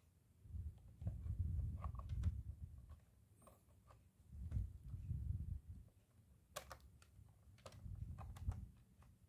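Handling knocks and sharp plastic clicks as the laptop's RAM compartment cover is put back in place, with the clearest clicks about six and a half and eight and a half seconds in.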